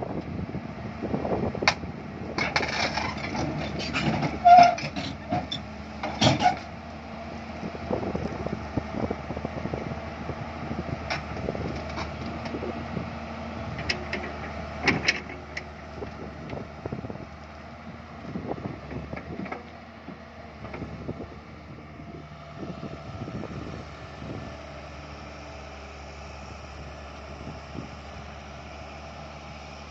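Komatsu PC200 hydraulic excavator's diesel engine running under load as its steel tracks clank and knock over the edge of a lowbed trailer's deck while it drives off. The knocks come thick and loud in the first half, then thin out, leaving the engine's steady drone.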